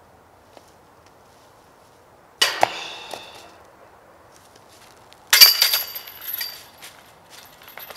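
Two disc golf putts hitting the chains of a metal basket, each a sudden jingling clank that rings and dies away: the first, about two and a half seconds in, drops out onto the ground, and the second, about three seconds later, stays in the basket.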